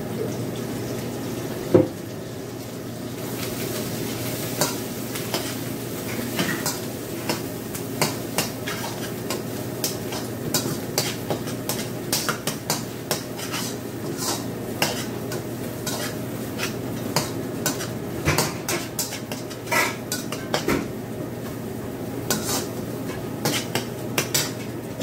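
Pounded spice paste sizzling as it fries in hot oil in a steel wok, with a metal spatula scraping and clicking against the wok as it is stirred. A single loud metal knock about two seconds in.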